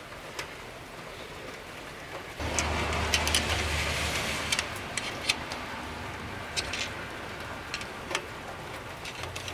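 Light metallic clicks of a hand tool inside an open Chrysler 9.25 rear differential housing, over a steady hiss of rain that gets louder about two seconds in.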